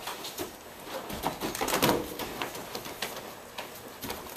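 Scattered light knocks and taps, several close together a little under two seconds in.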